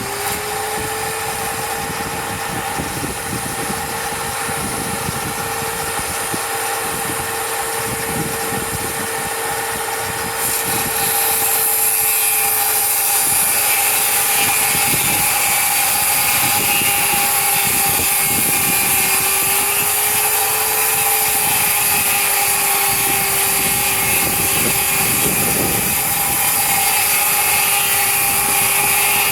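Electric power tool motor running steadily with a constant whine. About ten seconds in it turns louder and harsher, and its pitch sags a little for a while.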